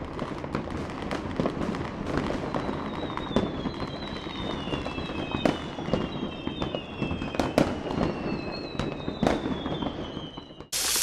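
Wood campfire crackling with sharp, irregular pops, while thin high whistles slide slowly down in pitch. Just before the end it cuts abruptly to a loud, steady sizzle of food frying.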